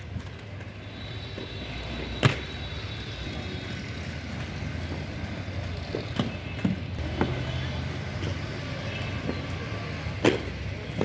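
Inline skate wheels rolling over concrete paving: a steady low rumble, with a few sharp clacks, the loudest about two seconds in and near the end.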